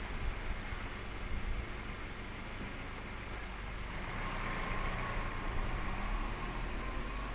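1990 Volvo 240 DL heard from outside after driving off on a wet road, its engine a steady low rumble under a haze of road noise as the car recedes.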